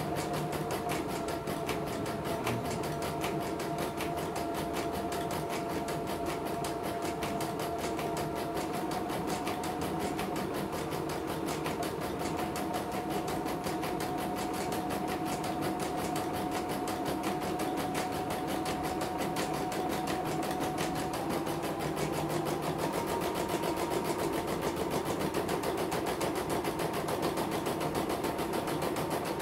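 CNY portable computerized embroidery machine stitching a design: a rapid, even needle rattle over a steady motor whine whose pitch steps a couple of times as the hoop moves. It runs smoothly without stopping or thread breaks, the sign of a machine working properly after repair.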